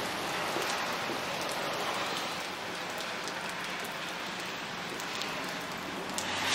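Steady rain falling on wet pavement and puddles, an even hiss with scattered ticks of individual drops.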